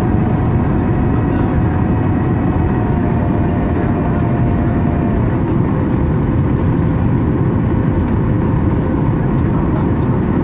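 Steady cabin roar of a Boeing 737 MAX 8-200 climbing out, heard from a window seat over the wing: the CFM LEAP-1B engines and the airflow over the fuselage.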